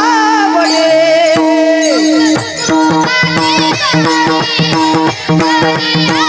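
Varkari kirtan music: a gliding melody over a steady drone. About two and a half seconds in, pakhawaj drum strokes enter in an even rhythm, with a metallic jingle over them.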